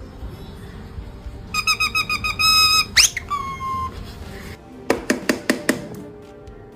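Parrot making mimicked electronic-style sounds: a fast run of beeps, a sharp rising whistle followed by a short falling note, then a quick series of squeaky clicks.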